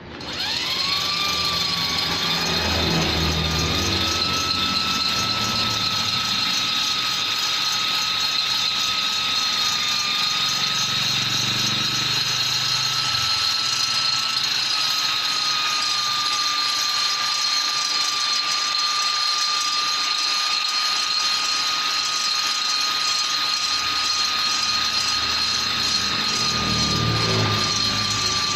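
Electric die grinder with a tuner burr spinning up to speed and then running steadily with a high whine, with rougher low grinding now and then as the burr shapes the ports of a Vespa cylinder.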